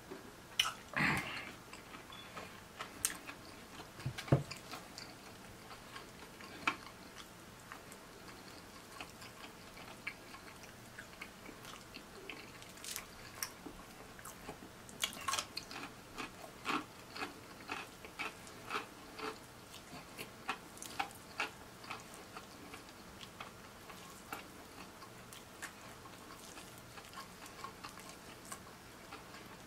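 Close-miked eating sounds: crispy fried chicken breading crackling as it is pulled apart and crunched, with wet chewing in between. A short slurp through a straw comes about a second in.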